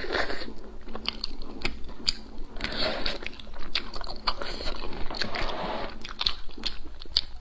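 Close-miked biting and chewing of a braised pig's trotter, with many short clicks and smacks of the mouth working the skin and meat.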